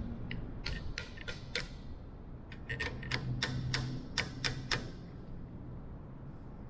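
A run of sharp clicks, about three a second, then after a short pause a second, denser run, as small metal hand tools and a clamp are handled and adjusted on a workbench.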